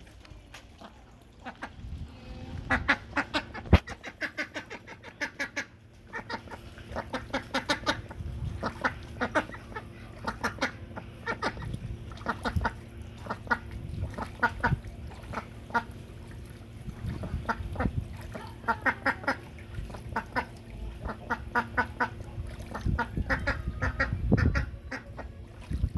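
Duck quacking loudly in repeated runs of short, rapid quacks, with brief pauses between the runs.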